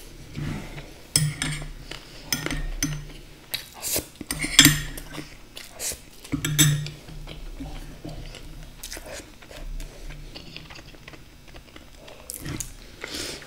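A metal spoon clinking and scraping against a nearly empty glass bowl as the last spoonfuls are scooped out, mixed with close-up chewing. The clinks are scattered, loudest about four and a half and six and a half seconds in, and sparser later.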